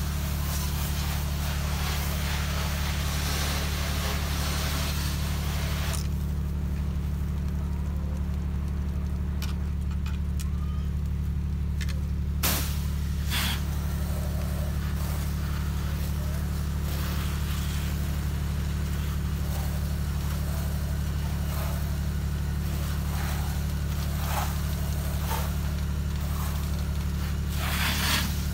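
A soft-wash rig's pump motor runs steadily with a low hum. Over it is a hissing spray that stops for about six seconds starting around six seconds in, then resumes. A few sharp clicks come near the middle and just before the end.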